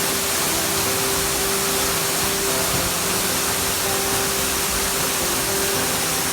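Waterfall rushing: a steady, unbroken roar of falling water, with faint held tones that come and go underneath.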